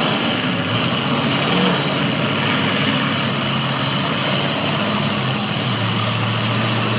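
Demolition derby cars' engines running together in a steady, loud mix.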